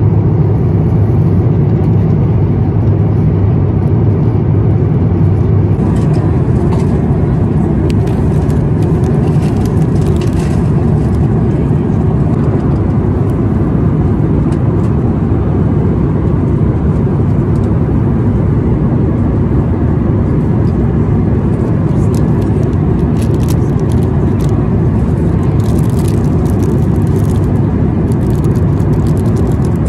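Steady cabin noise of an Airbus A350-1000 airliner in flight: an even, deep rush of air and engines. From about six seconds in, short crinkles of plastic wrapping being handled come and go, most around ten seconds in and again near the end.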